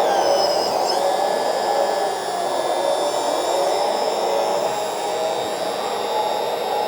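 RC excavator's sound module playing its simulated hydraulic sound at maximum volume, mixed with the steady rush of the model's 12-volt cooling fan. A high whine dips and recovers in the first second.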